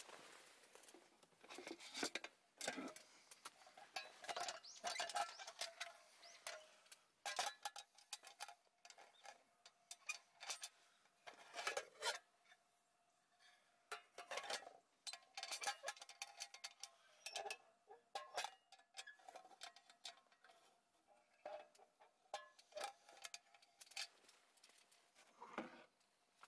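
Metal camp cookware and utensils clinking, knocking and scraping at an irregular pace.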